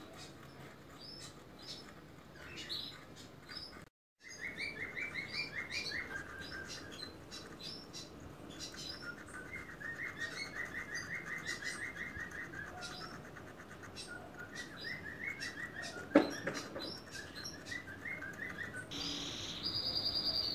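Animal chirping: repeated fast trills of short, high chirps, with a brief dropout about four seconds in. A single sharp knock comes about three-quarters of the way through, and a steady high insect-like trill starts near the end.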